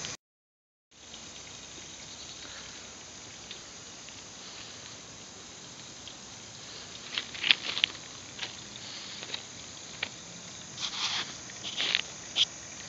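A steady, high-pitched chorus of insects in summer woods. In the second half come scattered crunching steps on loose gravel ballast.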